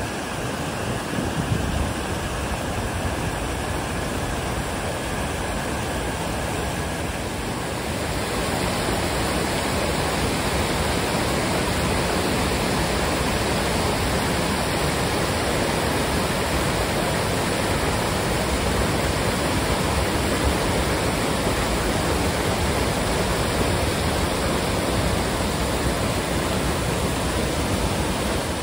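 White water rushing steadily over a rocky cascade and weir, growing louder and fuller about eight seconds in.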